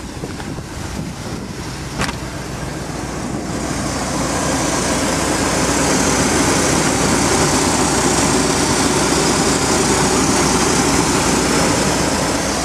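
Chevrolet 454 big-block V8 in a motorhome, carbureted, running steadily. One sharp knock about two seconds in, then the engine sound grows louder about four seconds in and holds there. The owner says a slight exhaust leak where the manifolds meet the front pipe can be heard a little.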